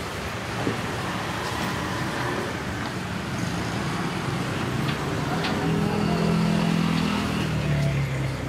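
Steady road traffic noise, with a motor vehicle's engine growing louder about six seconds in and easing off near the end; a few faint knocks.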